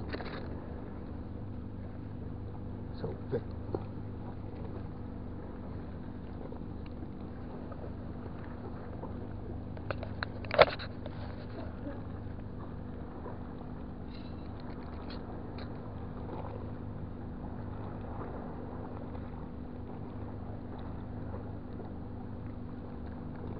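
Boat engine running steadily with a low, even hum. A few light clicks and knocks sound over it, one of them sharp and loud about ten and a half seconds in.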